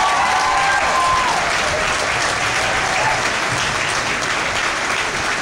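Audience in the bleachers applauding steadily, with a voice calling out a held cheer over the clapping in the first second or so.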